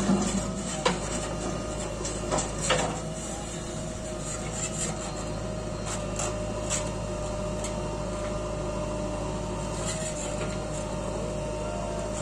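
JCB 3DX Eco backhoe loader's diesel engine running with a steady hum, while soil and clods tipped from the bucket knock and clatter into the steel body of a tipper truck a few times in the first three seconds.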